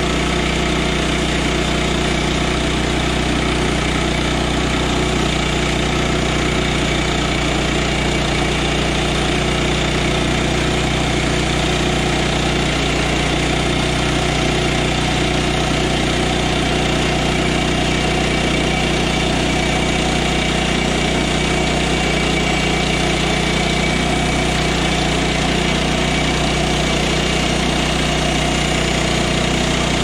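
Woodland Mills HM122 portable bandsaw mill running steadily, its small gas engine driving the band blade as the saw head is pushed through a log.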